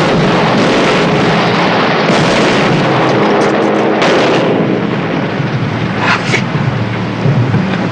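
Loud, continuous television battle sound effects: gunfire and explosions forming a dense din that eases slightly about halfway through.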